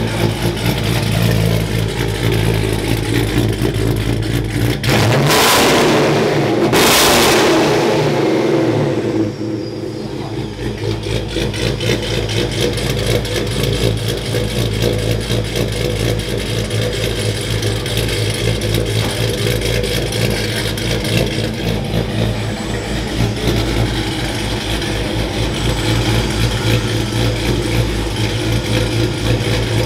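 Ram 1500 R/T's Hemi V8 idling through a new Karnage Series 1 muffler exhaust with X-pipe and 3-inch pipes, revved twice in quick succession about five and seven seconds in, then settling back to a steady idle.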